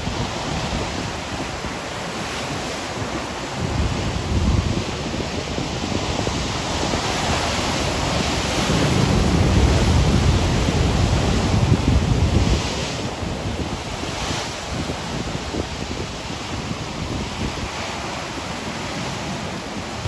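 Ocean surf: waves breaking and washing up a beach in a continuous wash with low rumbling surges. It swells to its loudest from about eight to twelve seconds in, then eases back.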